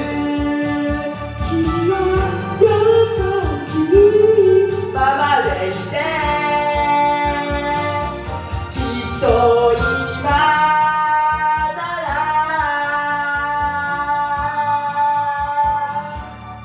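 A man singing through a karaoke microphone over a karaoke backing track, holding long high notes in the second half.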